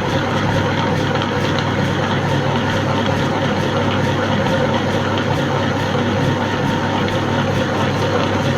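Comport Plus smart wet grinder running steadily: its motor hums as the grinding stone turns inside the stationary drum.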